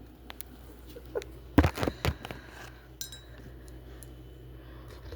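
Kitchenware clinking and knocking: a few light clicks, then a cluster of louder knocks about a second and a half in, and a clink that rings briefly around three seconds.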